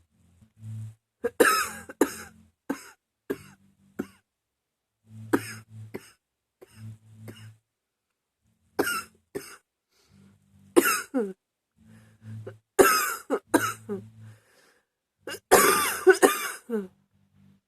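A woman coughing in a persistent, never-ending fit: short hard coughs in clusters of two or three every couple of seconds, with a longer, louder bout near the end.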